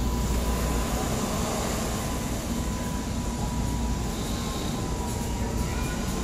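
Wire shopping cart rolling over a hard store floor, its wheels giving a steady rumbling rattle, with a faint steady whine above it.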